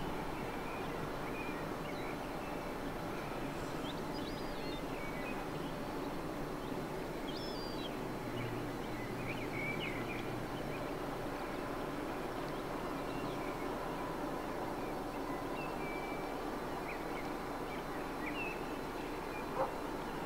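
Outdoor riverside ambience: a steady low rumble with short bird calls now and then, and one sharp click near the end.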